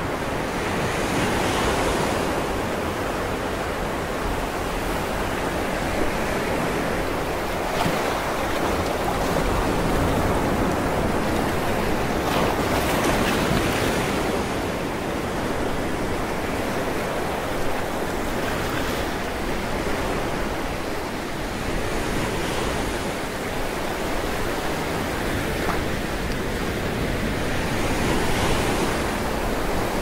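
Mediterranean sea waves washing and breaking in a steady rush of surf, swelling louder every few seconds.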